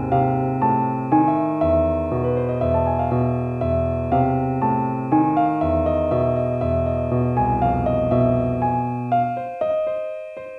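Slow, gentle piano music: single struck notes that fade away over held bass notes. The bass stops about nine seconds in, leaving a few sparse notes.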